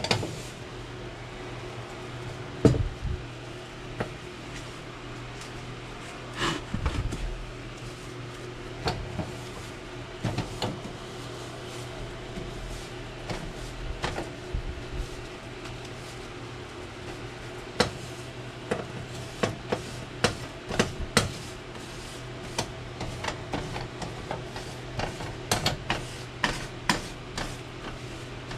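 Wiping down an electric coil-burner stovetop with a paper towel: rubbing, with many sharp clicks and light knocks as the metal burners and drip pans are handled, coming thick and fast in the last ten seconds, over a steady low hum.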